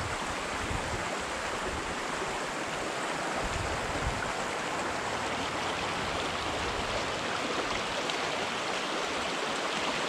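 Small freestone stream running over shallow riffles, a steady rush of water.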